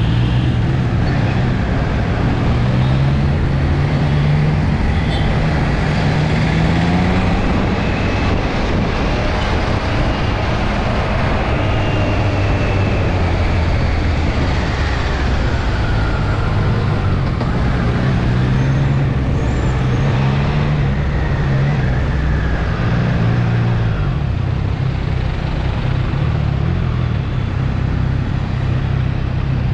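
Motorcycle engine running on the move under steady wind and road noise; the engine note rises and falls several times as the throttle changes.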